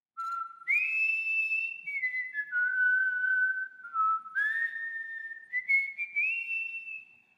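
A person whistling a slow tune as one clear line: a low note, a leap up about an octave held for about a second, then stepping down note by note before climbing back up near the end, with short slides between the notes.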